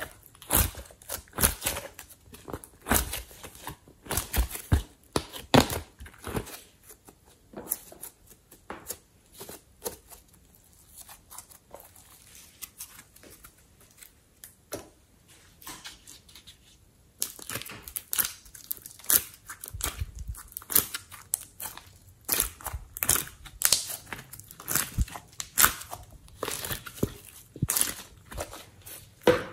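Hands squeezing, pressing and folding slime and soft modelling clay, giving a close run of sticky clicks and pops. The clicks are dense at first, thin out into softer handling for several seconds in the middle, then come thick again.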